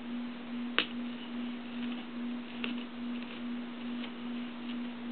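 A utility knife tip punching into the grenade part gives a sharp click about a second in and a fainter click near three seconds, over a steady low hum.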